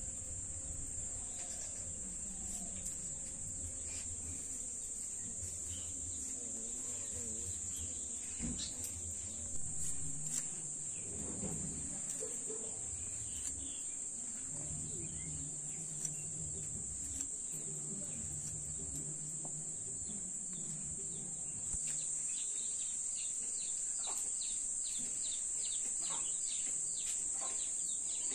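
Steady high-pitched drone of insects, with bird chirps; a bird calls in a quick run of short falling chirps over the last several seconds.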